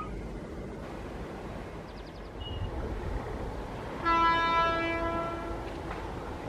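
WAP-7 electric locomotive horn sounding one steady blast of nearly two seconds, starting about four seconds in, over a low steady rumble of the train.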